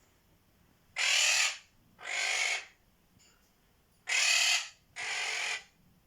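Quaker parrot (monk parakeet) making four harsh, hissing calls in two pairs, each call about half a second long, the first of each pair the louder.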